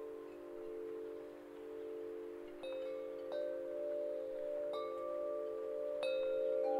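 Chimes ringing: long, overlapping tones swelling and fading slowly, with four soft new strikes through the second half.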